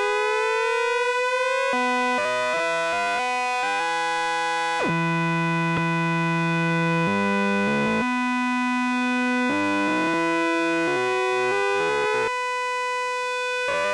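Buchla modular synthesizer oscillators in hard sync, with the principal oscillator's pitch being swept. After a smooth upward glide in the first second and a half or so, the tone stops gliding and jumps in steps between held pitches. It sounds a little like an ascending pentatonic scale, the way the Buchla's hard sync catches only at certain pitch ratios.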